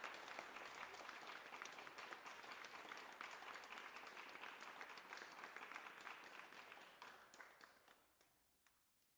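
Audience applauding, a dense spatter of claps that dies away over the last two seconds.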